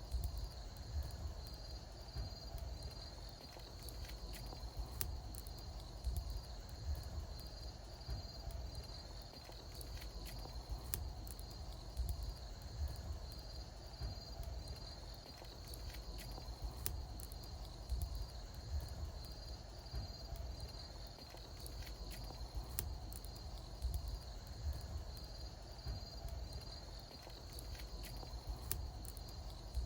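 Wood bonfire crackling, with scattered sharp pops over a low rumble, while insects chirp in a steady pulsing trill.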